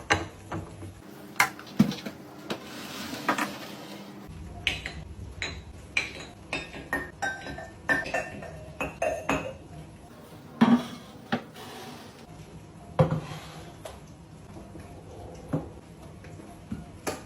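Containers, jars and dishes being handled and set down while a fridge is restocked: an irregular run of clinks and knocks, some ringing briefly like glass, with a short stretch of hiss about two seconds in.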